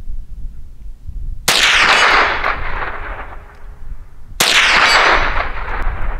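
Two shots from a Sig Sauer 522 semi-automatic .22 Long Rifle rifle, about three seconds apart, each ringing out in a long fading echo.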